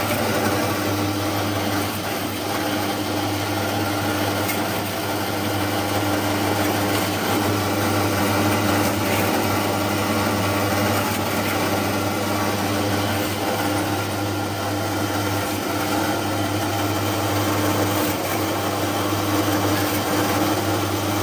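Electric motor and blade shafts of a 23-blade stainless-steel fish-cutting machine running steadily, a constant mechanical hum.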